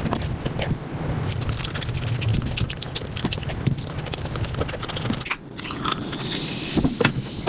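Close-miked eating sounds sped up about five times: rapid chewing, biting and crunching clicks that blur into a quick chatter, with a brief break just past the middle.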